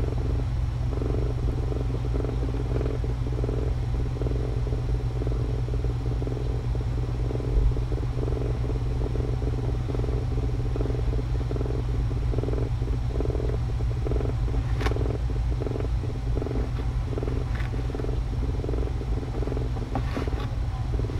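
Domestic cat purring steadily and rhythmically while being stroked on the head, over a steady low hum, with a couple of faint clicks in the second half.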